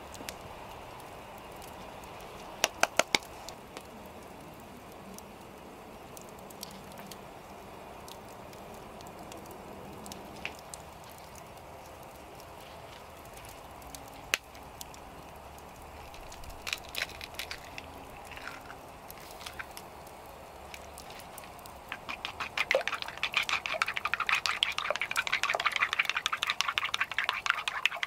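Wood fire crackling with scattered sharp pops, the crackling turning dense and louder about 22 seconds in. A quick cluster of loud clicks comes about two and a half seconds in.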